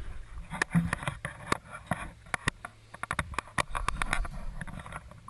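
A quick irregular series of sharp clicks and taps, a dozen or more, over a faint steady low hum.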